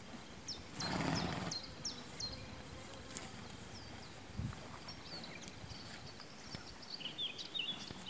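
Quiet pasture ambience: small birds chirping over and over in short high calls, with a short noisy burst about a second in and a dull thump around the middle.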